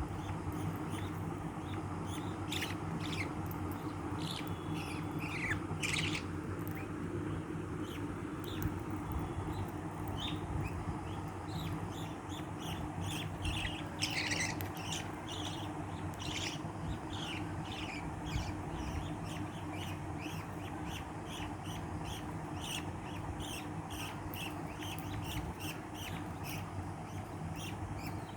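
Small pets chirping and squeaking: many short, high calls, some sliding down in pitch, over a steady low hum.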